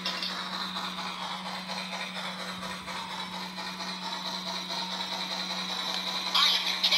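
Lionel HO Polar Express model steam locomotive running on the track, its tender speaker giving a steady steam-engine running sound over a constant low hum.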